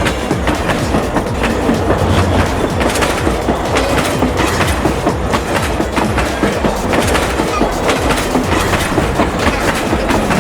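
Battery-powered toy bullet train running along its track: a steady, dense rattle of rapid clicks over the hum of its small motor.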